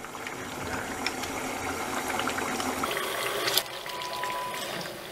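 Chicken curry gravy sizzling and bubbling in a nonstick frying pan over medium heat as cream is poured in and stirred through with a silicone spatula.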